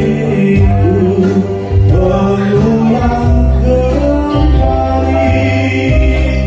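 Live band music through a PA: a man sings into a microphone over keyboard and guitar, with low bass notes changing every second or so.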